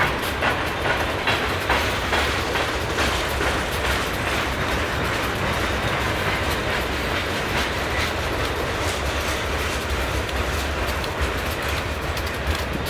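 Loaded steel coil cars of a long freight train rolling past, their wheels clacking over rail joints over a steady low rumble.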